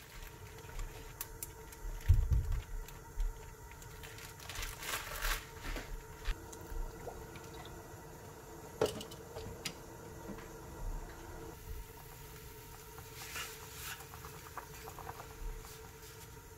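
Cooking at a gas stove: broth simmering in an enamelled cast-iron pot, with scattered knocks and clinks of utensils, the loudest about two seconds in. A steady faint hum runs underneath.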